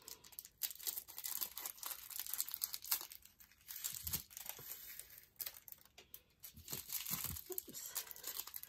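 Small plastic bags of diamond painting drills being handled and crinkled, with irregular light rustles and clicks as the bags are opened and the drills tipped out.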